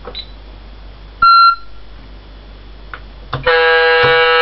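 RC model horn sound effects: a short, loud electronic beep about a second in, then near the end a loud, steady horn blast with a rich, buzzy tone that is held on.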